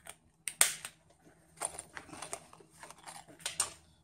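Hands handling fishing tackle on a table: a series of short rustles and sharp clicks, the loudest about half a second in.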